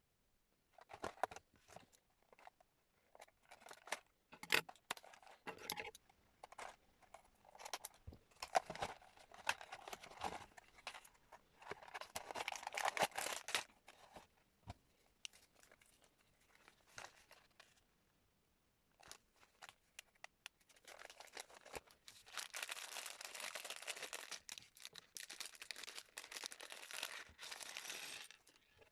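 Plastic Lego parts bags crinkling and being torn open, with scattered small clicks of pieces being handled. The crinkling comes in longer stretches, the longest in the last third.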